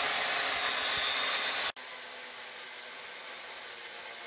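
Angle grinder with a cut-off disc cutting through steel angle iron held in a vise: a steady, hissing grind. It drops suddenly to a quieter level under two seconds in and carries on.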